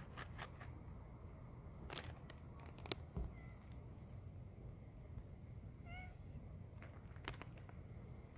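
Street cat meowing for food: a short meow about six seconds in and a fainter one earlier, among a few sharp clicks, the loudest just before the three-second mark.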